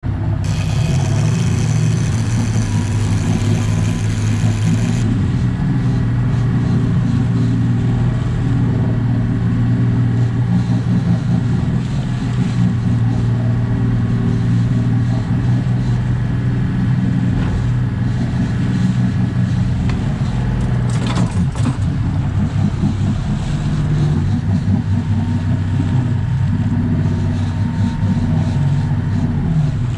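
Sportfishing boat's inboard engine running with a steady low hum as the boat moves through the sea. For the first five seconds a bright, high-pitched layer of steady tones lies over it. There is a short, sharp clatter about two-thirds of the way in.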